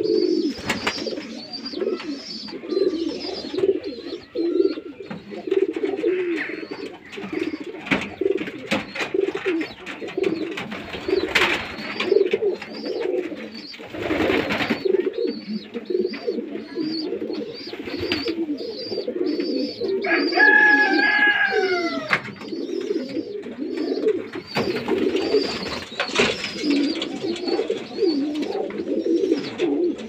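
A flock of fancy pigeons cooing: many low, rolling coos overlap continuously. A faint high chirping repeats above them, with scattered clicks. A higher, falling call cuts in briefly about two-thirds of the way through.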